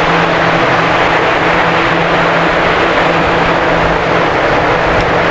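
Steady, loud machine noise with a constant low hum, unchanging throughout, in a pig barn.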